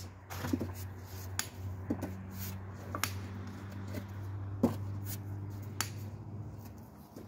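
Hand chiseling of Indiana limestone: sharp, irregular hammer-on-chisel taps about once a second, over a steady low hum.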